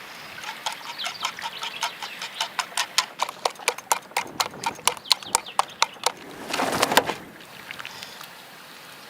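A rapid series of sharp knocks that speeds up from about three to about five a second, followed by a short rushing noise near the end.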